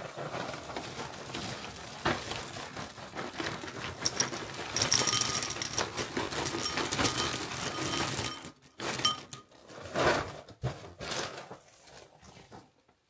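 Dry Choco Crunch chocolate cereal being poured into a bowl, the pieces rattling and clinking against it for several seconds, then a few shorter rustling sounds near the end.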